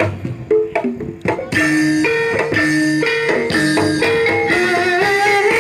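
Ebeg dance accompaniment music strikes up. A few scattered drum strokes come first, then after about a second and a half a steady melody of stepped notes sets in over the drumming.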